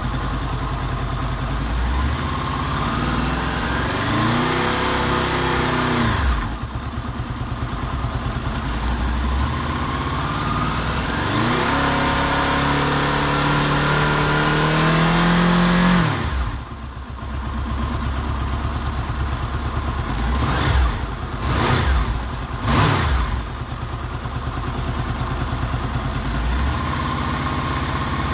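Honda VFR800 VTEC's V4 engine, fully warmed up, revved several times from idle. A short rise and fall comes about four to six seconds in, then a longer climb held until about sixteen seconds in, then three quick blips a little after twenty seconds, dropping back to idle between.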